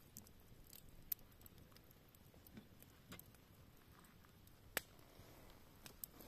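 Wood campfire crackling faintly, with scattered sharp pops at irregular intervals; the loudest pop comes about five seconds in.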